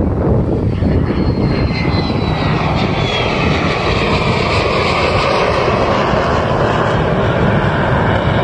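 Jet fighter flying past, its engine noise a loud, steady rush, with a high whine that falls in pitch over the first few seconds as the jet goes by.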